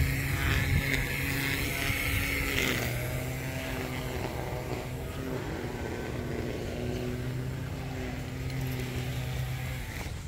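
An engine running with a steady hum, loudest in the first two or three seconds and then holding steady.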